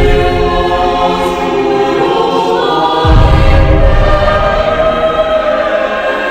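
Background music with a choir singing long, held notes, and a deep low swell coming in about three seconds in.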